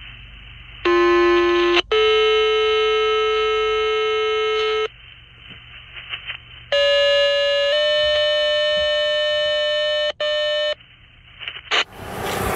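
Radio dispatch paging tones with hiss: a short low tone steps up to a longer, higher one, then after a pause a second, higher-pitched pair sounds. These are two-tone sequential pages alerting fire and EMS units to a call. Traffic noise rises just before the end.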